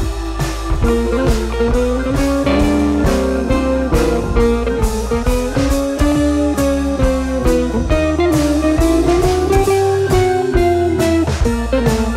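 Background music: guitar over a drum kit, with sustained notes that bend in pitch and a steady beat.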